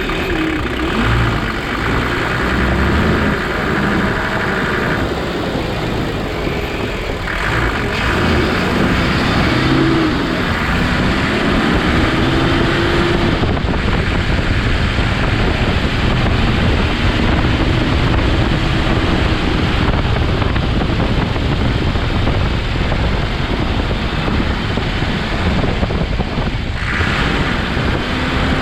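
Toyota Land Cruiser HJ75's 2H inline-six diesel engine running, its pitch rising and falling several times as it revs up and eases off.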